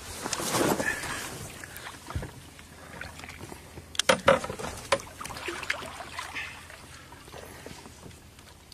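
Water splashing and sloshing as a large catfish, over 100 kg, wallows at the surface against the side of a boat, with a few sharp knocks about four seconds in.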